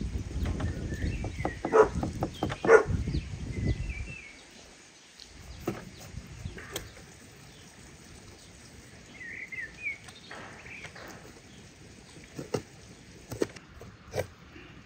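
A large knife cuts through raw beef on a wooden cutting board, with rustling handling noise and two sharp knocks of the blade on the board about two and three seconds in, then fainter taps. Birds chirp in the background.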